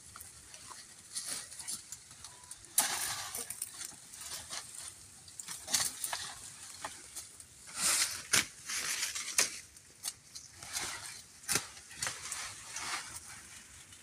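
Hazel leaves and branches rustling in irregular bursts, with several sharp snaps and clicks, as shoots are cleared from the base of a hazelnut bush.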